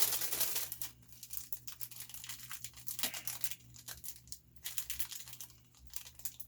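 Crinkly packaging being handled and torn open: irregular rustles and rips, loudest at the very start.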